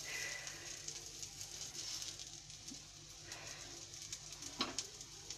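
Chicken seekh kebabs and patties shallow-frying in a little oil over high heat: a faint steady sizzle with fine crackles.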